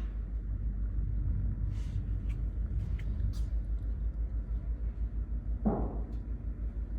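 LS V8 engine in a Toyota idling with a steady low rumble that pulses evenly. A short, rougher burst comes about five and a half seconds in.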